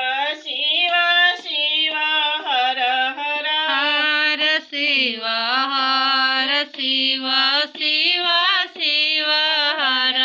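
A woman singing a devotional song to Shiva, a bhajan, solo with no instruments heard. She sings in long held and gliding notes, with short pauses for breath between phrases.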